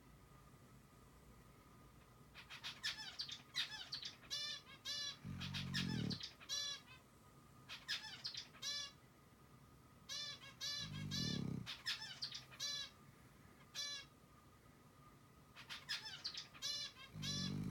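Snoring in slow, heavy breaths, three snores about six seconds apart, with runs of quick, high bird chirps in between.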